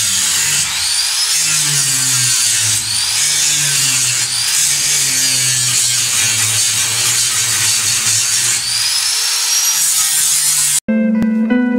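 Electric angle grinder working on a bus's rusted steel window frame to strip rust, its high whine sagging and climbing back several times as it is pressed in and eased off. It cuts off suddenly near the end, and electronic music starts.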